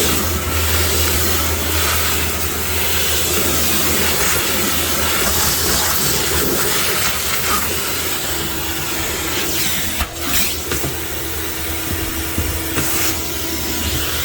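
Shop-Vac wet/dry vacuum running steadily, its suction hissing and rushing as the nozzle works over surfaces, with a brief dip and click about ten seconds in.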